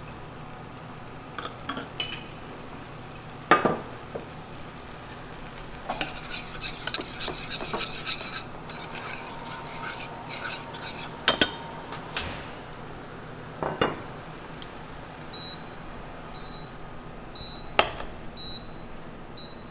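Metal spoon stirring and scraping a liquid mix of pea stock, butter and shredded dried squid in an enamelled saucepan, with a few sharp knocks of the spoon against the pot.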